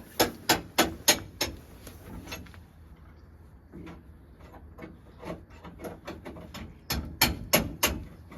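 Hammer blows on metal, most likely work on the steel side step being repaired. A quick run of about five strikes, roughly three a second, comes first. Lighter, scattered taps follow, then another run of four strikes near the end.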